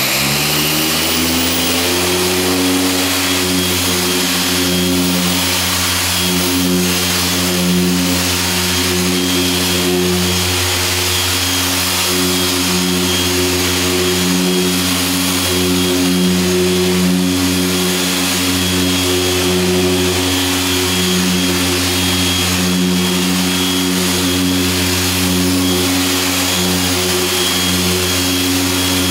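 Griot's Garage 6-inch dual-action polisher running on a car's paint. Its motor speeds up over the first couple of seconds, then holds a steady hum at a 5-to-6 speed setting as the pad works polish into the clear coat.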